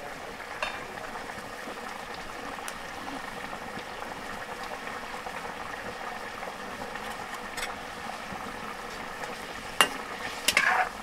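Chicken gravy simmering in a wok over a wood fire, a steady bubbling with scattered small ticks. Near the end a ladle knocks and clanks against the wok as it is stirred.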